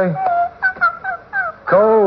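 Small dog whimpering: about half a dozen short, high whines, several falling in pitch, a radio-drama dog sound effect.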